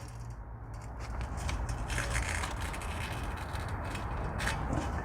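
Continuous crackly scraping and rubbing over a steady low rumble, with no distinct single impacts.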